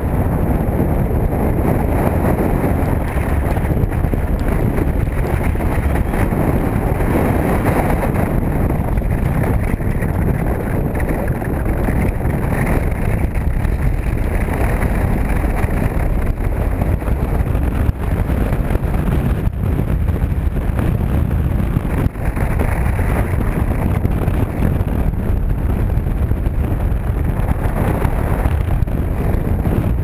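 Strong wind buffeting the microphone: a loud, steady low rumble.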